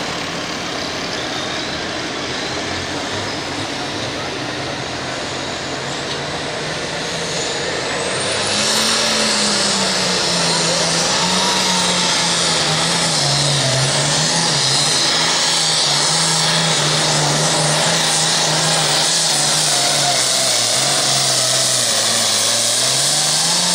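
Turbocharged engine of an International super farm pulling tractor. It runs at low throttle while hooked to the sled, then goes to full throttle about eight seconds in with a sharply rising turbo whine. It then runs hard under load for the rest of the pull, its pitch sagging and recovering as the sled bears down.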